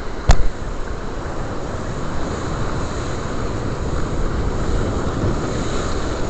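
Steady rumbling rush of wind buffeting the microphone over the sea, with one sharp knock about a third of a second in.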